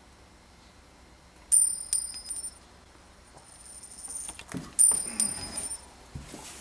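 High, bell-like metallic chime, struck twice about three seconds apart, each time as a few quick strikes that ring out for about a second.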